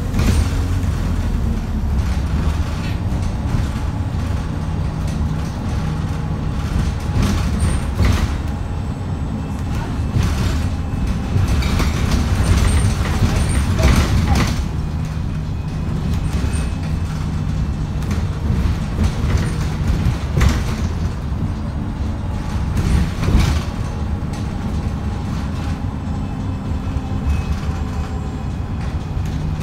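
Interior of an Alexander Dennis Enviro350H single-deck bus on the move: the engine drones steadily under load, with several sharp knocks and rattles about 8, 12 to 14, 20 and 23 seconds in. The recordist calls this engine unhealthy and thrashed.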